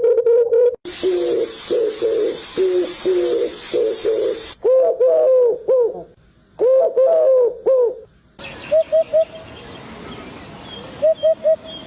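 Several short bird recordings cut together, all cooing: low hooting notes in quick groups, many of them rising and falling, with a hiss under some of the recordings and a few faint high chirps near the end.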